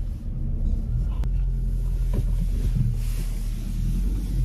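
Car engine idling, heard inside the cabin as a low, steady rumble.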